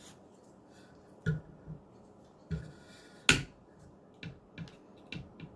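A series of about eight sharp clicks and light knocks at irregular intervals, the loudest a little past three seconds in: handling of the knife and sharpening gear between sets of strop passes.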